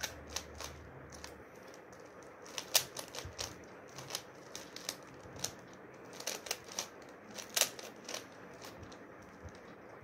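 Plastic 3x3 Rubik's cube being turned quickly by hand: a run of irregular clicks and clacks as the layers snap round, with two louder clacks, about three seconds in and two-thirds of the way through.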